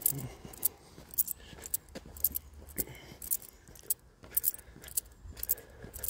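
Footsteps walking on a dry dirt forest path: a run of light, sharp crunches and clicks, a few a second, over a faint low rumble.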